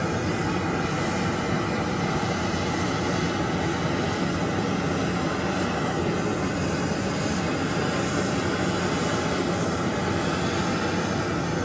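Handheld propane torch burning with a steady rushing hiss as its flame is swept over a cast iron griddle, heating the freshly oiled iron to dry it before seasoning.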